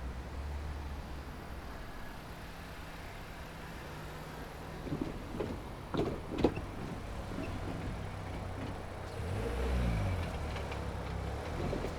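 Road vehicles passing at a railway level crossing: a car's engine and tyres over a low rumble, with a few sharp knocks about five to six and a half seconds in and the engine pitch bending up and down near the ten-second mark.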